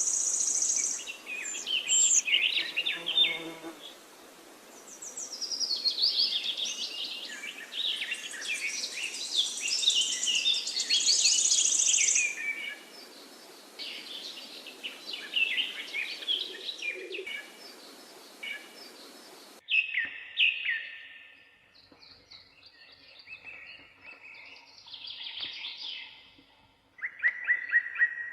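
Birds chirping and calling, many short overlapping calls, loud and busy over a steady hiss for the first twenty seconds. The hiss then cuts off abruptly and sparser, quieter chirps follow, with a run of quick repeated chirps near the end.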